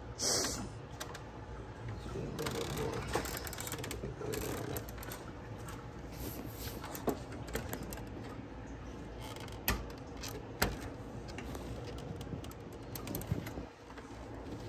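Gloved hands working plastic clips and parts loose around a car's radiator and condenser: scattered clicks, knocks and rustling, with a louder scrape just after the start and two sharp clicks about ten seconds in.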